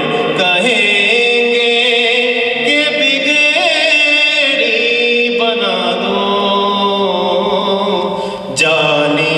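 A man chanting a devotional poem in long, held notes with ornamented turns in pitch, breaking off briefly near the end before starting a new phrase.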